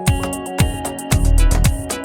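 Background music with a steady beat: a bass line and plucked, guitar-like melody over regular drum hits.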